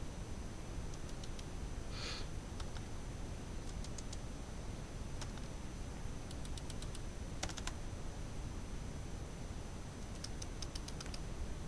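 A young mockingbird's feet pressing and clicking laptop keys as it steps about on the keyboard: small scattered groups of light clicks, with a brief raspy sound about two seconds in.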